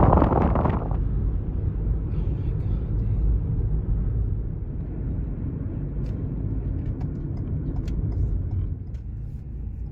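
Loud wind rush on the microphone cuts off abruptly about a second in, leaving the steady low rumble of a car driving, heard from inside.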